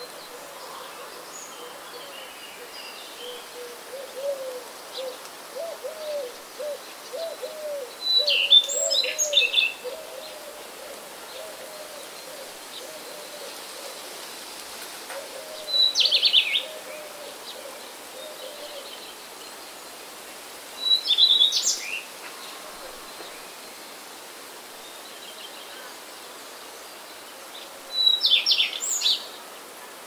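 A songbird sings four short phrases several seconds apart, each a high note followed by a quick trill. Through the first half, a softer run of short low calls from another bird repeats, over a steady faint hiss.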